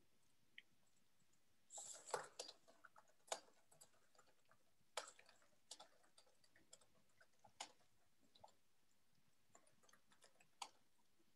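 Computer keyboard typing: faint, irregular key clicks, with a quick run of keystrokes about two seconds in.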